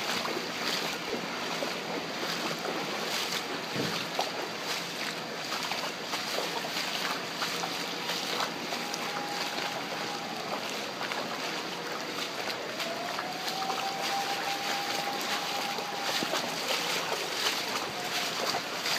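Heavy rain and rushing floodwater, with splashing and sloshing through ankle-deep water on a flooded street. A faint siren tone rises about two-thirds of the way in and holds for several seconds.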